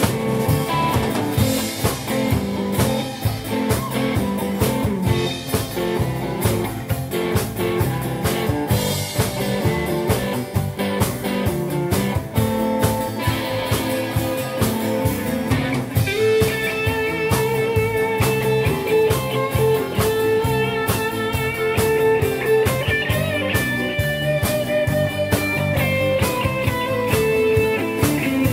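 Live band playing: a strummed acoustic guitar, electric bass and drum kit, with a held, wavering lead melody line coming in about halfway through.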